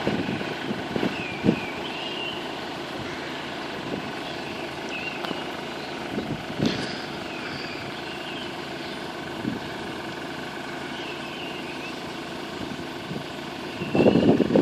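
Steady outdoor background at a railway level crossing between trains, with a vehicle-like hum, scattered short bird chirps and wind buffeting the microphone now and then, strongest near the end.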